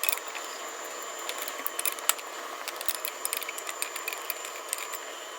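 Irregular light metallic clicks and clinks of a VW Polo's wheel bolts being undone and taken out with the wheel brace.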